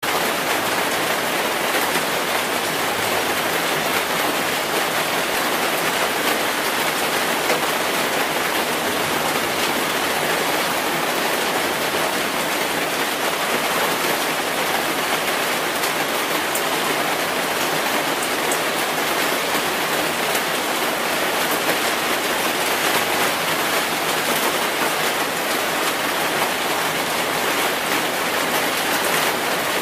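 Steady rain-like hiss with a fine crackle, unchanging throughout: the masking sound track of a subliminal audio.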